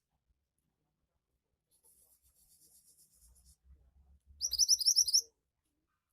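Pied bushchat (mantenan) singing: faint high twittering, then about a second in the second half of a loud, rapid run of rising high chirps, close to ten a second.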